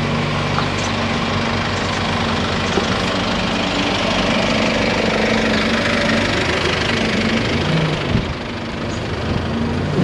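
Car engine running with road noise, a steady low drone whose note shifts and wavers about eight seconds in.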